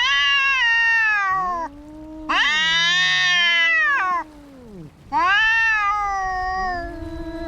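Two cats caterwauling at each other in a fight standoff: three long, loud, wavering yowls of nearly two seconds each, with a second cat's lower moaning call gliding up and down between and under them.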